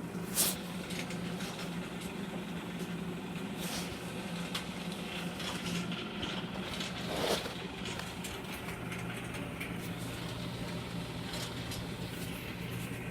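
Euhomy compact clothes dryer running: a steady motor hum with irregular creaking and clicking as the drum turns, and two louder knocks, one about half a second in and one around seven seconds. The owner is unsure whether the creaking is normal or a sign of a fault or overloading, since others call this dryer whisper quiet.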